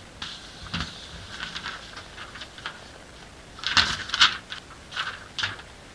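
Pen scribbling on paper: a run of short, scratchy strokes with a few sharper taps, loudest about four seconds in.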